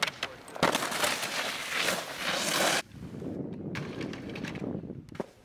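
Skis sliding and scraping across terrain-park box and rail features. A knock about half a second in starts a scrape of about two seconds that cuts off suddenly, then a second, quieter scrape ends with another knock near the end.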